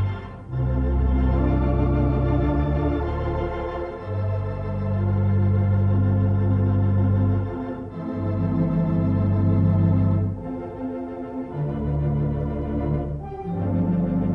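Organ playing slow, held chords, the low notes changing every second or two, with short breaks between phrases.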